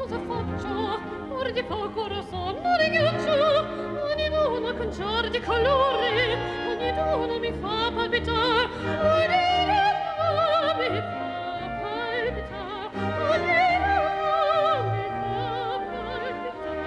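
A female opera singer singing high, sustained phrases with a wide vibrato, accompanied by an orchestra.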